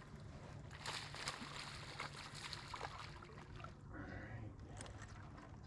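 Water splashing and sloshing at the side of a fishing boat as a hooked small largemouth bass is played in, with irregular splashes about a second in and again near the three-second mark, over a steady low hum.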